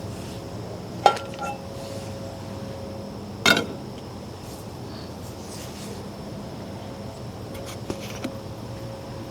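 Metal camp cookware and stove parts being handled: two sharp clanks, about a second in and about three and a half seconds in, the first leaving a brief ringing tone, then a couple of light clicks near the end.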